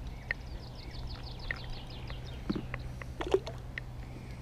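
A small songbird singing: a rapid run of high, quickly falling notes, about five a second, for about two seconds, with a few single chirps. Soft clicks of hands handling fishing line and hook come in near the middle.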